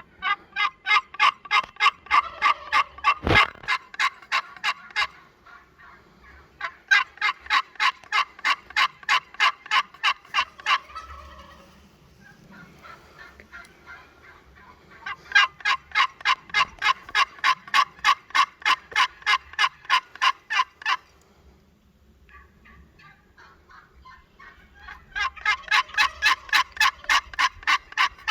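Turkey yelping: four long runs of evenly spaced calls, about four a second, with short pauses between runs. A single sharp knock a little over three seconds in.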